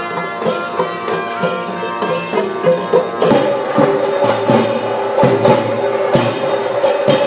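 Traditional temple procession music: drums struck in a steady beat about twice a second under a held, sustained melody. The drumming grows louder and busier about halfway through.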